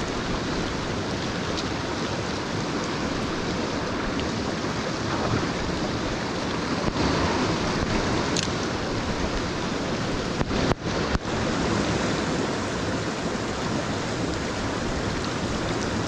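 Mountain stream water rushing over rocks, a steady rush.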